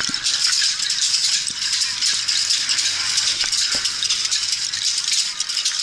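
Several flagellants' whips, made of bamboo strips tied to cords, rattling as they are swung and struck against bare backs. The result is a dense, continuous clatter of many quick strokes.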